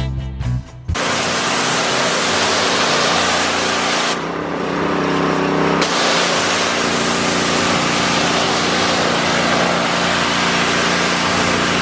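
Westinghouse WPX3400 gas pressure washer running, its 212cc OHV engine and pump heard under the steady hiss of the high-pressure water jet striking concrete. About four seconds in the hiss drops away for a second or so, then comes back. A guitar tune cuts off just under a second in.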